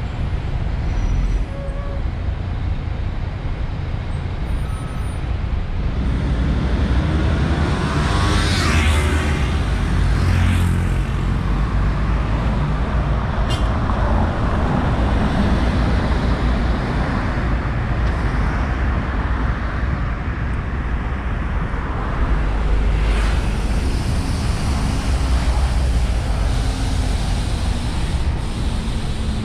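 Road traffic on a city bus corridor: a steady engine rumble of city buses, including an articulated bus, with vehicles passing close by about eight seconds in and again about twenty-three seconds in.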